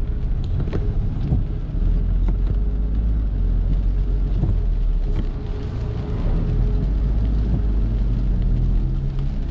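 A car driving on wet city streets, heard from inside the cabin: a steady low rumble of engine and tyres, with a few light ticks.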